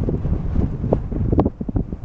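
Wind buffeting the microphone in uneven gusts, a low rumble that eases briefly near the end.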